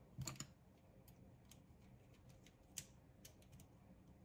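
Small plastic clicks and taps of a screw terminal block being handled while sensor wire ends are pushed into it: a short cluster of clicks at the start, a few faint ticks, and one sharper click about two-thirds through.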